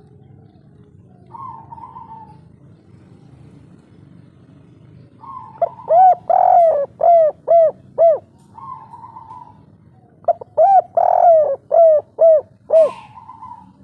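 Spotted dove cooing its loud 'kuk 3' song: two phrases, one about halfway through and one near the end, each a quick run of about six rising-and-falling coos with one longer note in the middle.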